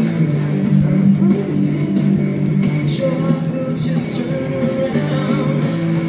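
Live amplified rock-band music from a stadium soundcheck: guitar-backed rock arrangement with a singing voice, playing continuously.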